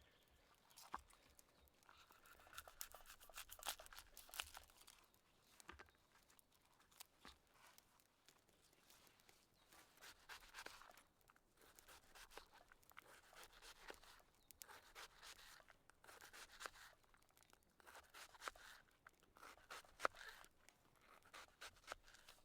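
Faint, intermittent rustling and scraping with scattered small clicks and knocks, typical of hands preparing food and handling camp cooking gear.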